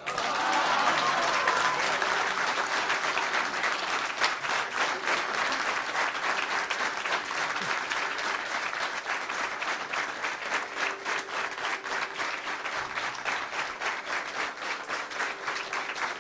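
Audience applauding: steady, dense clapping from many hands that eases off slightly after the first couple of seconds.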